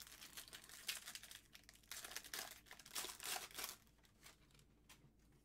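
Trading cards and pack wrappers being handled: crinkling and rustling with light card-on-card clicks, busy for about four seconds and then tailing off.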